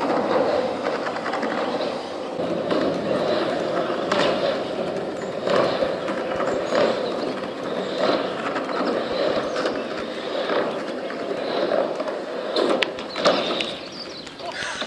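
Skateboard wheels rolling over a rough surface, a steady grinding roll with scattered clicks and knocks, and a sharper knock near the end.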